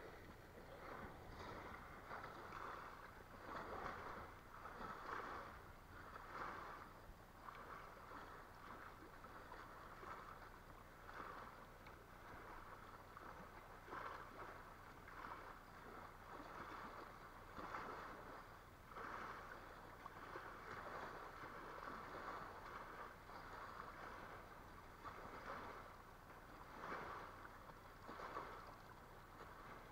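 Faint lapping of small waves at a lakeshore, a watery wash that swells irregularly every second or two.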